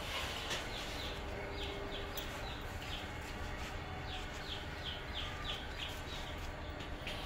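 Young chicks peeping: short, high, falling chirps, two or three a second, over a steady low hum.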